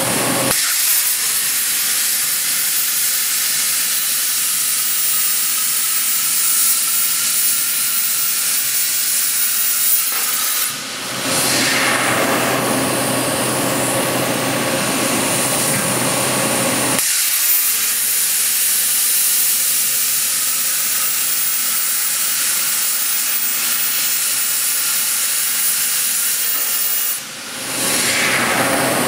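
Hypertherm HD plasma torch on a bevel head cutting holes in a steel dome, a loud steady hiss. The hiss dips briefly twice, about a third of the way in and near the end, then fills out lower for a few seconds.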